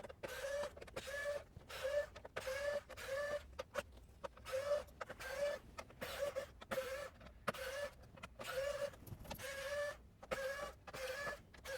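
Screws being backed out of a PS5's metal shield with a screwdriver, giving a short squeaky tone with each turn, about two a second.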